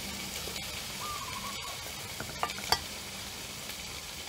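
Marinated beef sizzling on the hot dome of a mookata grill, a steady hiss, with a few sharp clicks of chopsticks against the metal grill a little past the middle.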